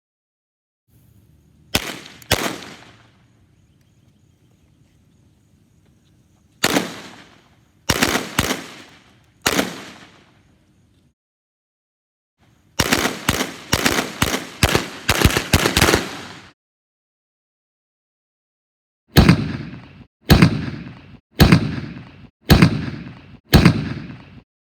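Gunshots from WWII German infantry firearms, each with an echoing tail. Two quick shots, then four single shots, then a rapid burst of automatic fire lasting over three seconds, then five shots about a second apart.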